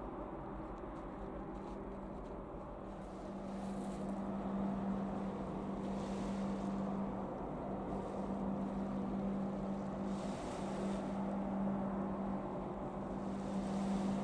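Steady low drone of a large container ship's engines passing offshore, with small waves washing onto a sand and shingle beach in hissing swells every few seconds.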